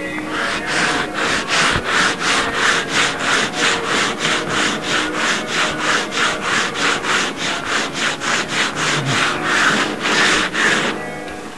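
A hand tool worked back and forth on wood in quick, even strokes, about three a second, stopping shortly before the end.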